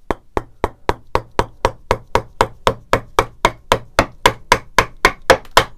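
Wood chisel struck by a mallet in a quick, even rhythm of about five blows a second, chopping out the waste between saw stop-cuts in a wooden bass guitar body.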